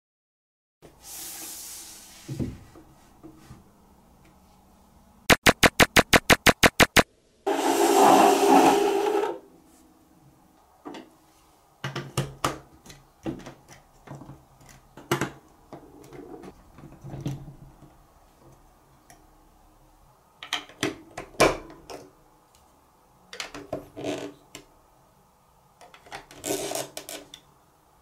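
Large plastic toy building blocks being pressed onto a baseplate and onto one another, with scattered clicks and knocks. Earlier comes a fast run of about a dozen sharp clicks, then a loud noisy burst lasting about two seconds.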